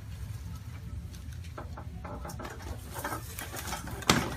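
Neck joints cracking during a chiropractic cervical adjustment: a few faint crackles, then one sharp, loud crack near the end.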